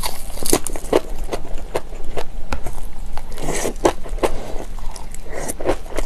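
A person chewing crunchy kimchi, many irregular crunches, one after another.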